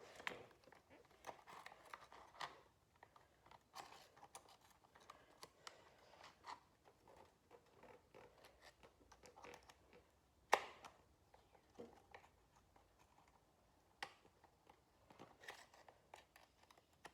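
Small clicks and light scraping of chainsaw carburetor parts being handled as the throttle linkage rod is worked toward the throttle lever's hole, with one sharper click about ten and a half seconds in.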